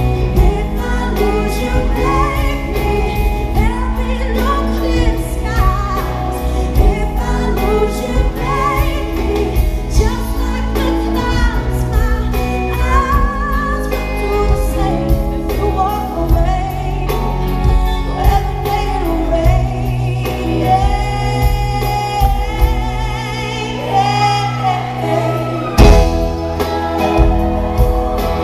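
A woman singing a pop ballad live with a full band, her voice wavering with vibrato over heavy bass and drums. A loud drum hit comes near the end.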